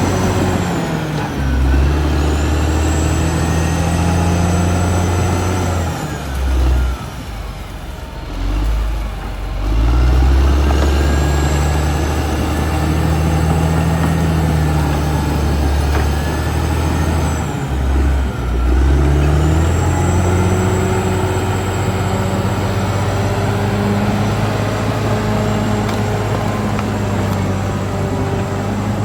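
Caterpillar D6R XL bulldozer's diesel engine running hard, its note dropping and then climbing back twice, about six seconds in and again past the middle, with a high whine that rises and falls with it.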